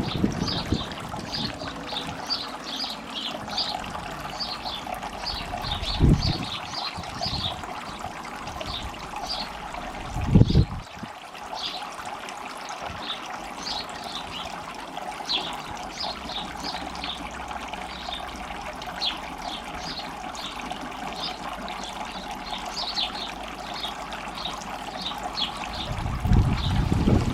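Small solar-powered garden water feature running, water trickling and splashing into its basin in a steady patter. A few brief low thumps are heard, about six and ten seconds in and again near the end.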